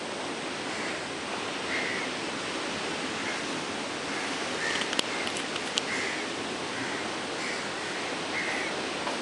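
Steady rushing of sea surf and wind. A bird gives short calls over and over, about once a second, and a few sharp clicks come about five seconds in.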